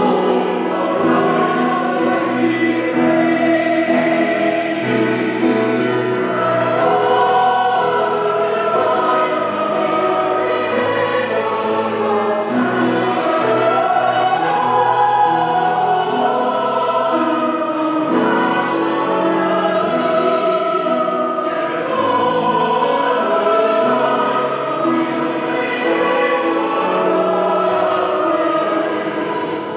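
Church choir singing, with long held notes.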